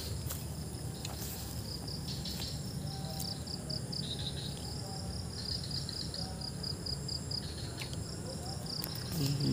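Insects chirping in a steady pulsing trill, over a low rumble and a few faint clicks.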